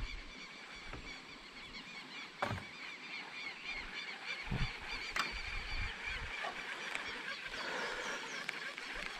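Wild birds calling in a dense, chattering chorus of short repeated notes. A few dull knocks come through, near the start, about two and a half seconds in, and about four and a half seconds in.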